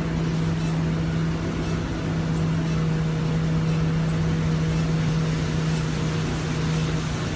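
Steady low hum of a vehicle running, heard from inside its cabin, under an even hiss of heavy rain on the windshield and roof.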